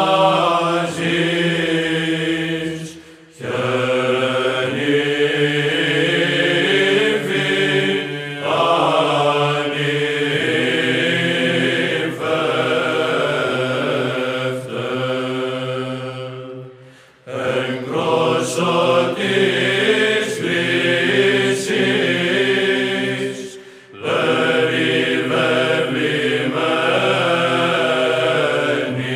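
Orthodox liturgical chanting: voices singing a slow chant over a held low drone note. The singing comes in long phrases broken by short pauses about 3, 17 and 24 seconds in.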